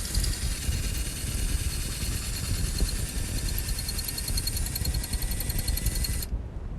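Electric drill running steadily while drilling out a broken bolt, with a faint pulsing high whine and a low rumble. It cuts off suddenly near the end.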